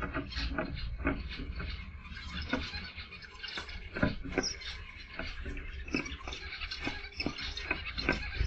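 Small aviary finches calling: a busy, irregular run of short sharp chips, several a second, over a low background rumble.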